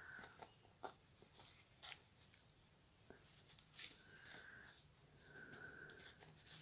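Faint rustling and scratching on cloth, with scattered small clicks, as a cat paws at a toy on a cotton shirt. Three faint short high tones sound near the start, about four seconds in and about five and a half seconds in.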